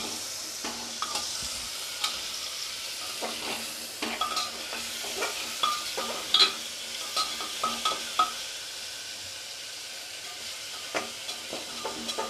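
Chicken pieces with crushed garlic and ginger sizzling in hot oil in a pressure cooker, as they are stirred and fried. Irregular knocks and scrapes come from the stirring against the pot, busiest in the middle and thinning out after about eight seconds.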